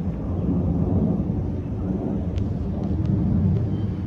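Jet airliner passing high overhead: a steady low rumble from its engines.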